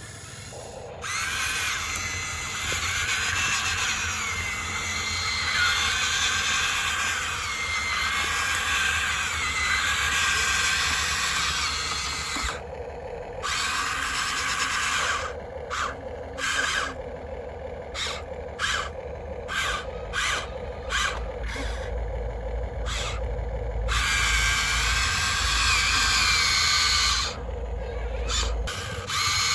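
Small electric motors of radio-controlled model construction vehicles whining with a wavering pitch. Around the middle the whine cuts in and out in short bursts, then it runs steadily again.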